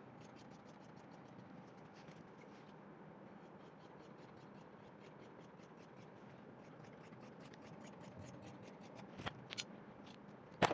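Scissors cutting through cloth: a steady run of faint, quick snips. Two louder clicks near the end.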